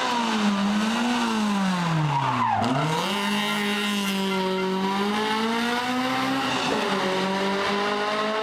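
Honda Civic rally car's engine at high revs as it passes: the revs fall sharply about two and a half seconds in as it slows for the bend, then climb again as it accelerates away, with a brief drop near the end at a gear change.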